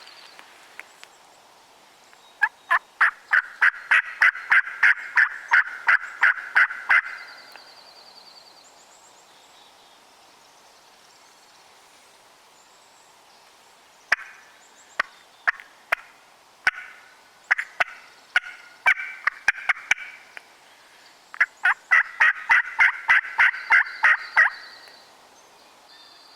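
Turkey yelping: three runs of rapid yelps, about four a second. The first and last runs are long and even; the middle one is broken and irregular.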